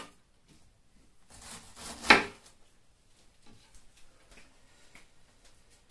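Chef's knife cutting through a head of cabbage onto a wooden cutting board, ending in one sharp knock of the blade on the board about two seconds in, then only faint light taps.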